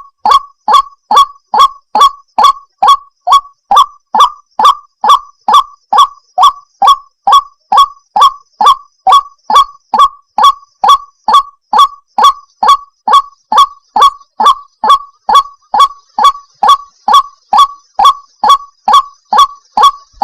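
White-breasted waterhen call repeated in a fast, unbroken, evenly spaced series of short notes, about two and a half a second, each dipping slightly in pitch. It is labelled as a female's call.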